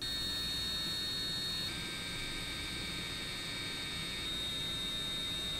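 Small handheld electric rotary tool running at high speed: a steady high-pitched motor whine with hiss, shifting slightly in pitch about two seconds in and again near the end.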